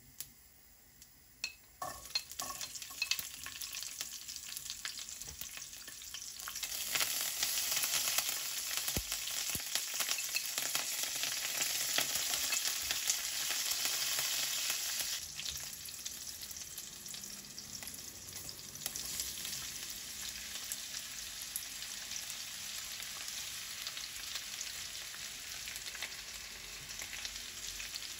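Hot oil sizzling in a pan as spice seeds, garlic, curry leaves and green chillies fry in it. The sizzle starts about two seconds in, grows louder from about six seconds in, and eases to a steady lower sizzle after about fifteen seconds.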